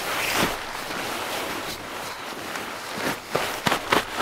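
Sleeping bag's nylon shell rustling as it is pulled and spread out by hand, with a few sharper crinkles and pats near the end.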